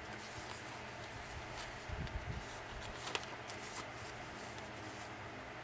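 Paper and cardstock being handled: faint rustling and a few soft taps and ticks as folded journal pieces are flipped and slid into place, with a soft thump about two seconds in.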